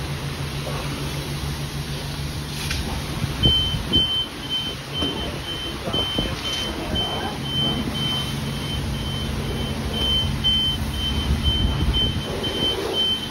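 Low steady hum of the wash bay's high-pressure pump. From about three and a half seconds in, a high electronic beep repeats evenly about twice a second.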